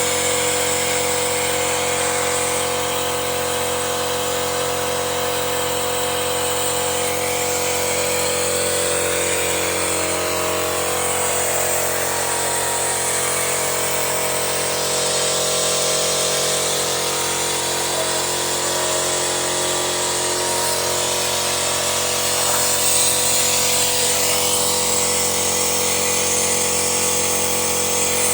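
Honda Brio engine running at a steady speed during a carbon-cleaning engine flush, a constant mechanical hum and whine that does not change pitch.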